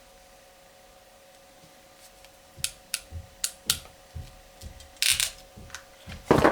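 Small plastic electrical connector and metal terminal pins being handled on a bench: a run of sharp, light clicks and taps starting about two and a half seconds in, a short scrape, and a louder knock near the end.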